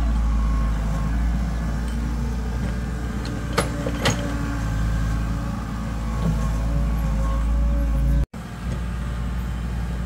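Mini hydraulic excavator's diesel engine running steadily under load as the arm swings and lifts the bucket, with two sharp clicks about three and a half and four seconds in. The sound drops out for an instant a little after eight seconds.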